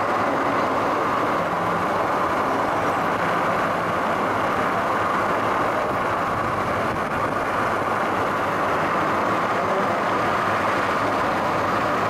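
Steady, even road noise of a moving vehicle driving along, a constant rush with no breaks or changes.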